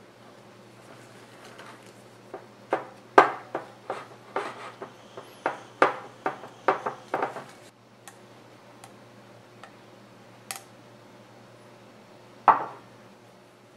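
Silicone spatula stirring thick chocolate paste in a glass bowl, knocking against the glass in a run of irregular knocks, about two a second, for several seconds. One more louder knock comes near the end.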